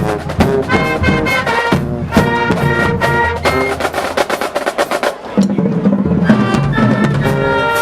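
High school marching band playing: drum hits under short, punchy brass chords, moving into a held low brass chord about five seconds in.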